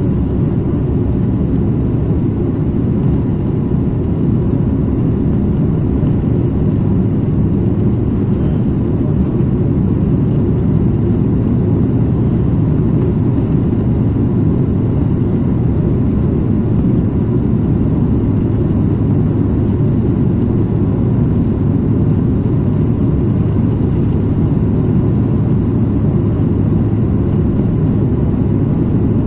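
Steady drone of a propeller airliner's engines and rushing air, heard from inside the cabin on the descent of final approach, with a faint steady high whine riding over the low rumble.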